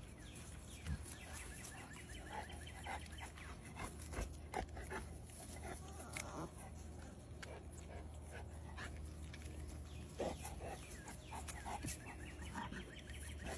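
A litter of 5-week-old puppies whimpering and yipping: many short high cries that fall in pitch, overlapping one another throughout.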